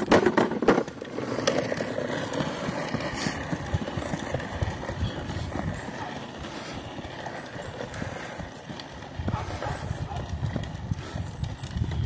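Plastic toy dump truck's hard wheels rolling and rattling over rough asphalt as it is pushed along, a continuous clattering rumble that is loudest in the first second.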